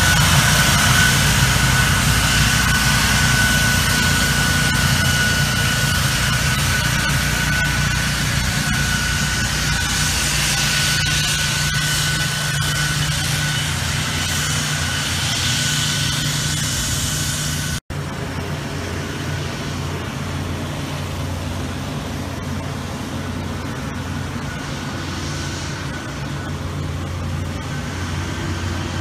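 Golf-course maintenance machinery: a utility vehicle towing a trailer-mounted debris blower, a steady rush of noise with a thin high whine that slowly fades. After a sudden cut a little past halfway, a ride-on reel mower's engine running steadily, lower and quieter.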